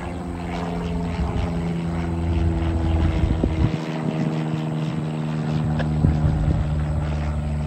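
Small propeller airplane droning steadily, a low engine-and-propeller hum with an even stack of tones.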